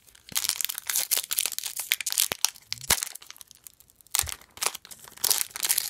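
A wrapper on a pack of hockey trading cards crinkling and tearing as it is pulled open by hand. There are two spells of rapid crackling, with a quieter pause of about two seconds in between.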